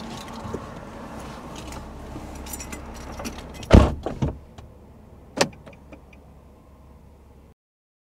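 A car door, the Nissan 370Z's, is shut with one loud knock about four seconds in, with keys jangling and handling rustle around it. A second, sharper knock comes about a second and a half later, and the sound cuts off abruptly near the end.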